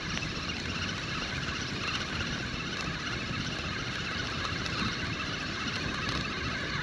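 Steady outdoor wind and water noise, even throughout, with no separate clicks or knocks.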